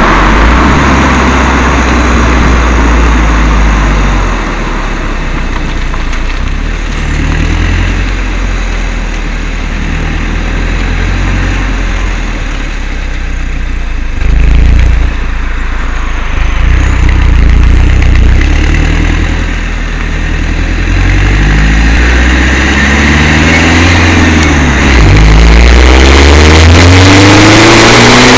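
Exhaust of a remapped Alfa Romeo Giulietta 1.6 JTDM turbodiesel, run without its DPF through a 55 mm pipe and twin 71 mm silencers, heard right at the tailpipe while driving. The engine drones at fairly steady revs with a short loud surge about halfway, then pulls hard with the pitch rising, drops briefly at a gear change, and rises again.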